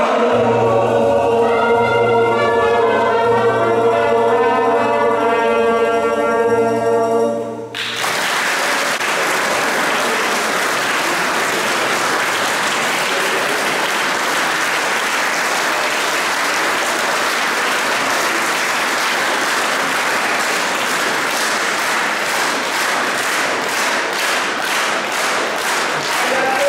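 Mixed choir with trumpet holding the final chord of a piece, cut off sharply about eight seconds in. Audience applause follows and falls into rhythmic clapping in unison near the end.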